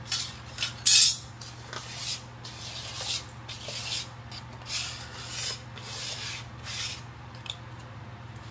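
About a dozen short, rough scraping and rubbing strokes as scattered metal debris is cleared off the garage's concrete floor by hand. The strokes stop about seven seconds in. A steady low hum runs underneath.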